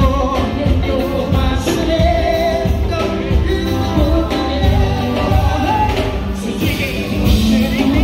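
Loud bar music: a singer over a steady, heavy bass beat.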